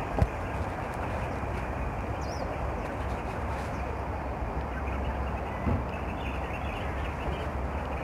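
Steady outdoor city background noise with a low rumble and a soft thump near the start and another about two thirds of the way through, and a brief high bird chirp about two seconds in.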